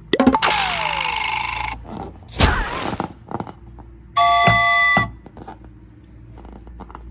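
A sequence of short effects: a hissing rush with a falling whistle near the start, a thud about two and a half seconds in, then a steady bell-like ding lasting under a second.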